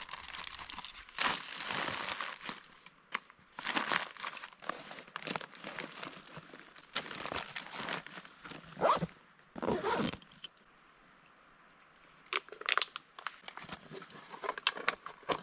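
Plastic MRE pouches and wrappers being crumpled and gathered up by hand: irregular bursts of crinkling and rustling, with a short lull about two-thirds of the way through.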